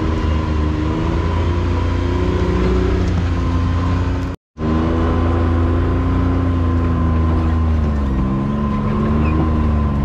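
Can-Am X3 side-by-side engine running at low revs while the machine crawls over rock, its pitch rising and falling gently under a steady high whine. The sound cuts out for a moment about four seconds in, then carries on the same way.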